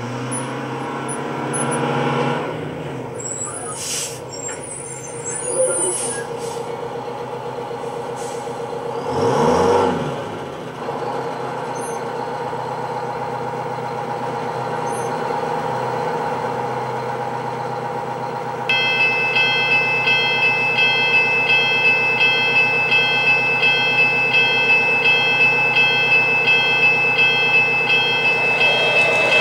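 Steady mechanical hum of an O-gauge model train layout, with a few louder swells early on. About two-thirds of the way in, a model grade-crossing signal's bell starts ringing about twice a second as the crossing lights flash for an approaching train.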